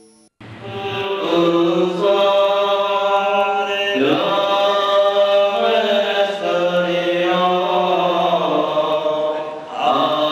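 Voices singing a slow chant in held notes that step up and down in pitch over a steady low tone, beginning about half a second in after a short silence.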